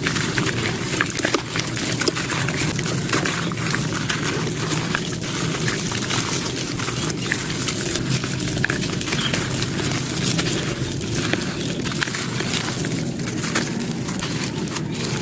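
Sand-cement chunks being crumbled and crushed by hand: a dense, continuous gritty crackle with many small crunches.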